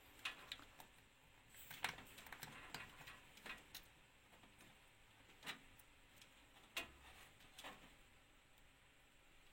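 Faint, scattered small clicks and taps, about half a dozen at uneven intervals: small plastic front-panel LED connectors being handled and pushed onto motherboard header pins.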